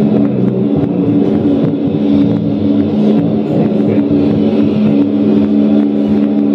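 Loud, dense harsh-noise drone from live noise-music electronics: several held low tones under a thick wash of distorted noise, going on steadily without a break.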